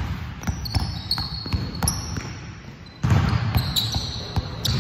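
Basketball being dribbled hard and fast on a gym floor, an irregular run of bounces, with short high sneaker squeaks; the bouncing and movement grow louder about three seconds in.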